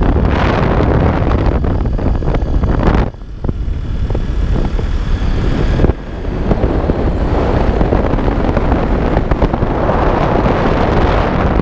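Wind rushing over the microphone of a camera on a moving motorcycle, with the motorcycle's running noise under it. The loud, heavy rush breaks off sharply twice, about three and six seconds in.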